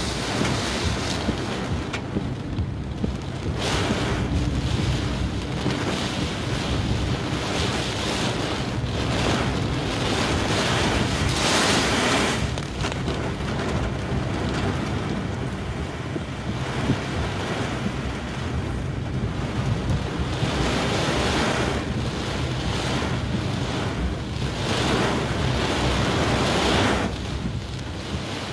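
Storm wind buffeting the microphone together with the wash of rough surf, a continuous roar of noise that swells and eases in gusts every few seconds.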